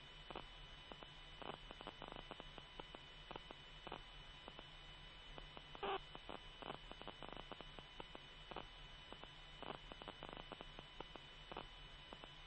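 Faint steady hum and static of an open radio channel with nobody talking, with scattered faint crackles.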